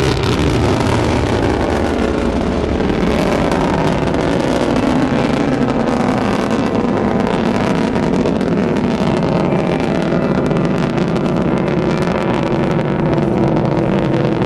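Rocket engines during ascent shortly after liftoff: a loud, steady, dense rushing noise with no letup.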